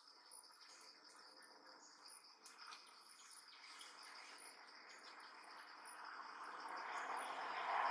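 Steady high-pitched insect chorus, with a rushing noise swelling louder through the second half.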